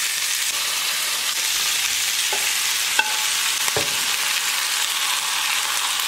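Chicken pieces sizzling steadily in hot oil and butter in a stainless steel pan while tomato-onion sauce is stirred in over them. A few light knocks of a utensil on the pan stand out, the sharpest about three seconds in.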